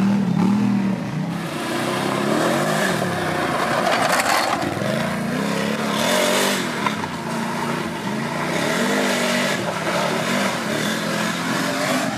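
Racing quad (ATV) engine revving up and down repeatedly as it is ridden hard over the course, with two harsher bursts of throttle about four and six and a half seconds in.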